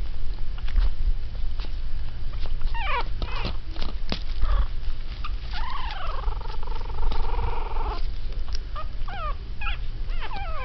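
Very young teacup Yorkshire Terrier puppies, 3.5 weeks old, making high-pitched squeaky yips and whines, with one long drawn-out whine about six seconds in, over a steady low hum.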